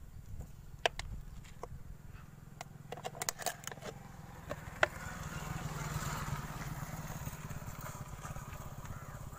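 Several sharp clicks and taps of plastic against metal, a cluster of them around three seconds in, as a cut plastic bottle used as a funnel is handled at a motorcycle engine's oil filler, over a steady low rumble.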